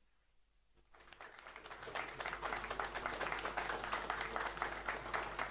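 An audience applauding: clapping starts about a second in and quickly swells to a steady round of applause.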